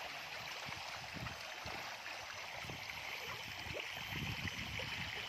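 Water splashing and churning as a crowd of caged fish thrash at the surface for floating pellet feed: a steady wash of water with many small, irregular splashes.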